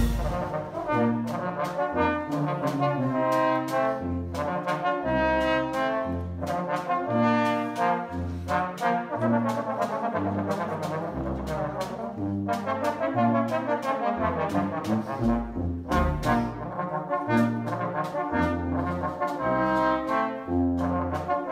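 Wind band playing a tune: two sousaphones carry a bass line under trombones, trumpets and clarinets, with a snare drum and bass drum keeping the beat.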